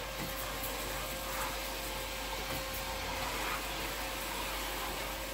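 Vacmaster 2.5-gallon, 2 peak horsepower shop vacuum running steadily: a constant rush of air with a faint steady tone.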